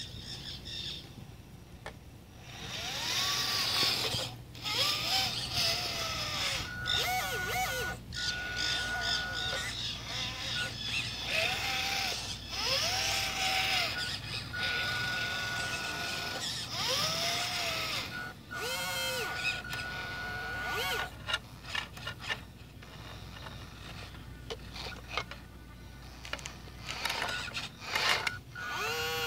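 1/14-scale RC Doosan wheel loader's electric motors whining, the pitch rising and falling again and again as it drives and works its bucket, with a steady higher whine that switches on and off. Music begins near the end.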